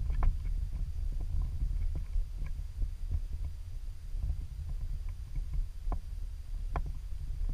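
Low, uneven rumble on the microphone, with a few light clicks scattered through it, the loudest two near the end.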